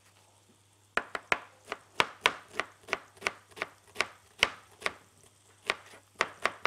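Kitchen knife chopping an onion on a cutting board. The strokes start about a second in and come about three a second, with a short pause near the end.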